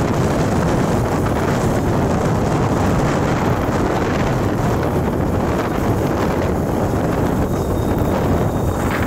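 Steady rush of wind over the microphone of a camera riding on a moving motorcycle, with the motorcycle's engine and road noise beneath it.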